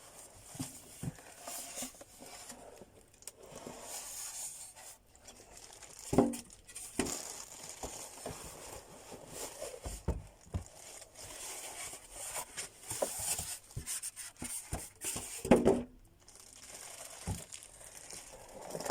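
Plastic and paper packaging crinkling and rustling as sewing machine parts are unwrapped by hand, with a few light knocks of parts being set down.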